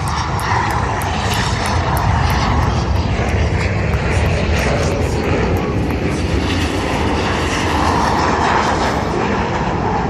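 Jet engine noise from Red Arrows BAE Hawk jets flying past, a steady loud rushing sound that swells a little near the start and again about eight seconds in.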